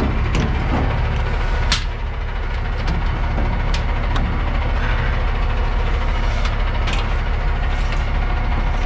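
Semi-truck engine idling steadily, with a handful of sharp metallic clicks as the air-line gladhands and electrical cord are hooked up to the trailer.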